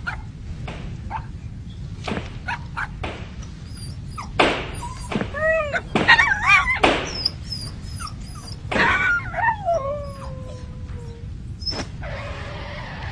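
A puppy howling and whining in loud, wavering cries that bend up and down in pitch, then one long howl that slides downward about nine seconds in. Short clicks and knocks come first.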